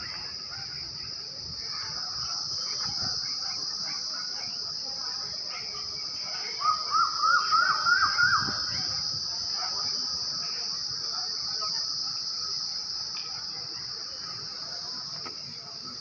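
Steady high-pitched drone of insects such as crickets or cicadas. About a third of the way in, a bird calls a quick run of about eight short rising notes, each a little higher than the last, lasting about two seconds.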